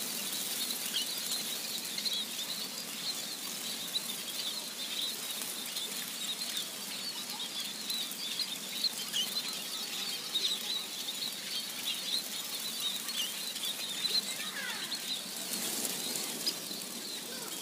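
A dense chorus of small birds twittering: many short, high chirps overlapping without pause.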